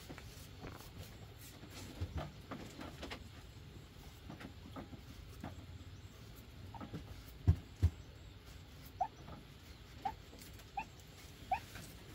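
Short rising squeaks from a small animal, about one a second in the second half, after two loud knocks about halfway through and scattered lighter clicks.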